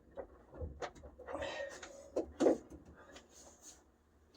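Scattered light clicks, knocks and rustling of hands and tools working on parts in the truck's dash, with two sharper knocks about two seconds in.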